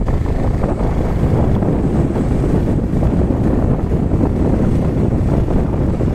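Wind buffeting the microphone of a two-wheeler coasting with its engine off: a steady, loud low rush of wind with no engine note.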